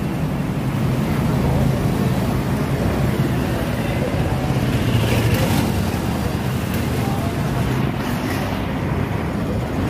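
Street ambience: a steady rumble of traffic, with indistinct voices of people in the background.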